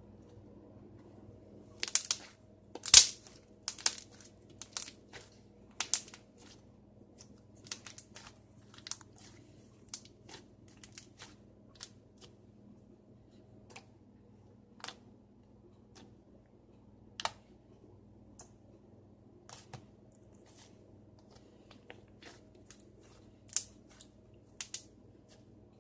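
Freshly heated slime being squished and handled, making irregular sticky pops and crackles. They come thick and loud in the first few seconds, then thin out to scattered single pops, over a faint steady hum.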